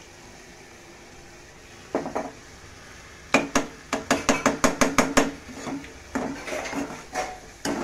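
A metal spoon clinks fast against a steel kadai, about five strikes a second, as a raw egg is stirred quickly into the curry. Softer scraping stirs follow. There is a single knock about two seconds in.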